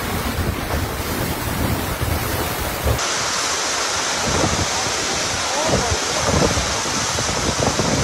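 Strong gusting wind and heavy rain in a severe storm, with wind buffeting the phone's microphone. The recording cuts to a second storm clip about three seconds in.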